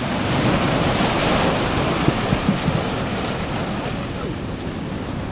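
Sea surf washing in through a gully between boulders, a rush of foaming water that is loudest at the start and slowly eases off as it drains. Wind buffets the microphone.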